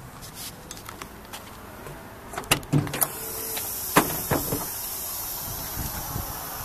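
Cab door of a 1998 Mack RD688S truck being unlatched and swung open: light clicks, then a few sharp metal clunks, the loudest about two and a half and four seconds in. From about three seconds in, a steady hiss.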